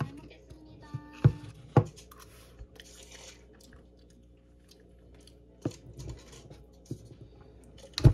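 Metal spoon scraping and knocking inside a paper ice cream cup, with a few sharp separate taps as the cup is handled and set on the table.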